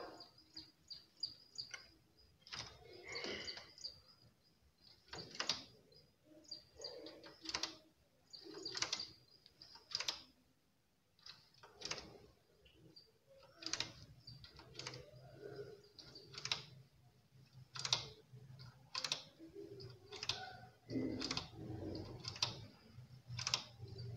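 Faint, irregular metallic clicks of a domestic knitting machine's needles and a hand transfer tool as stitches are hooked back onto the needle bed, about one every second or two. A thin high steady tone with short repeated notes runs behind, and a low hum comes in about halfway through.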